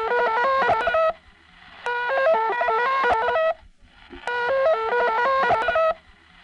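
Shortwave station's interval signal received off the air: a short stepped melody of electronic-sounding tones, repeating about every two and a half seconds with brief gaps, over faint hum and hiss. The signal is believed to be generated by some mechanical device.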